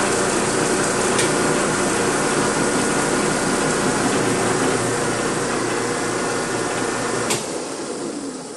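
Electric-motor-driven generator rig running with a steady mechanical whir, a light switch click about a second in and a sharper click near the end, after which the machine starts to wind down and fade as it is shut off.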